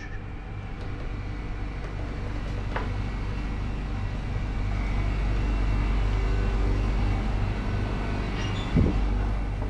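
Steady low rumble with a faint regular pulse, swelling toward the middle and easing off near the end, with a single knock about a second before the end.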